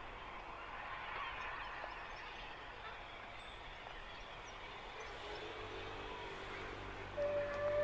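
Bulleid Battle of Britain class steam locomotive approaching in the distance, its working a faint low rumble that grows from about five seconds in. Near the end its whistle sounds, one steady high note and the loudest thing heard.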